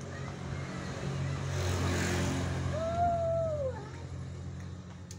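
A motor vehicle passing by, its engine hum swelling and loudest about two seconds in before fading. Near the middle there is a brief higher tone, about a second long, that rises and then falls.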